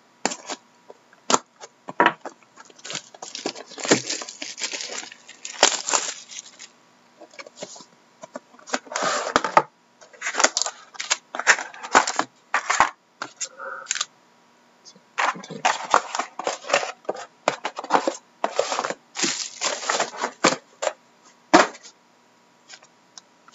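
Plastic shrink wrap crinkling and tearing as it is cut and stripped from a sealed trading-card box, then cardboard box and pack packaging rustling as the box is opened. The crackles come in short clusters with brief pauses.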